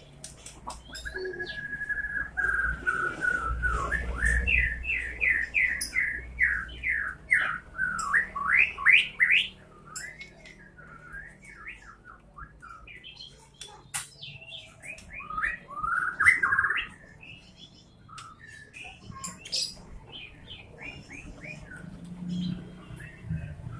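White-rumped shama (murai batu) singing: a long held whistle, then fast runs of rising notes and varied warbled phrases. There is a loud burst of song about sixteen seconds in, and shorter calls near the end.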